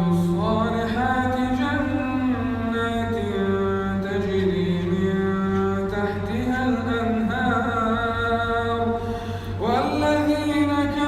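A male reciter chanting Quran verses in a drawn-out melodic style, holding long notes that glide slowly up and down. A new phrase begins with a rising glide near the end.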